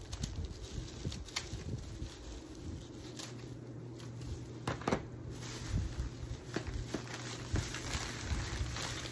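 Dry rustling and crinkling of hula-skirt fibres being handled and arranged as scarecrow hair, with scattered light clicks and snaps. A low steady hum runs underneath.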